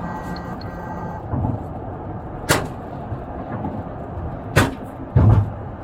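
Three sharp bangs about two seconds apart, the last one the heaviest, over the steady running noise of a vehicle.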